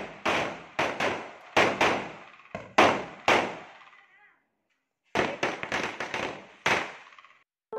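Firecrackers going off in an irregular series of sharp bangs, each trailing off in a short echo. The bangs pause for about a second partway through, then a few more follow.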